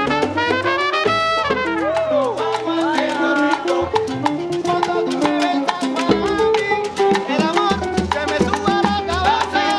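Cuban street band playing salsa live: a trumpet carries the melody over congas, bongos, upright bass and hand percussion, with a singer, in a steady dance rhythm.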